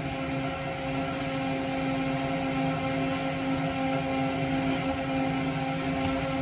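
Electric fuel pumps of a Holley Sniper EFI system running steadily as they pressurise the fuel system before a first start, a constant-pitch hum with a hiss.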